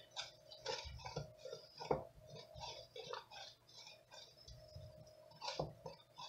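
Wooden spoon stirring thick, chunky peach preserves in an enameled cast-iron pot: soft irregular scrapes and clicks against the pot, with a sharper knock about two seconds in and another near the end. The mixture is hot but not yet at a hard boil.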